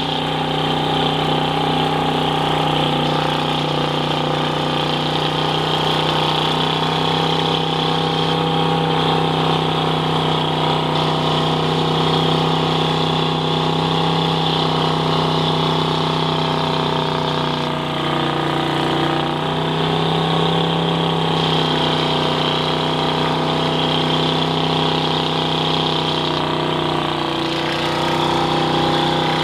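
Ford mud-bog truck's engine running at steady, held revs while the truck sits bogged down in deep mud, its pitch barely changing, with a brief dip about two-thirds of the way through.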